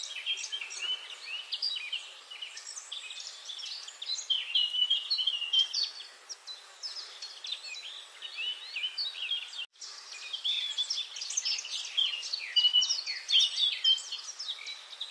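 Many small birds chirping and twittering at once, a dense, busy chorus of short high calls overlapping throughout, broken by a split-second gap about ten seconds in.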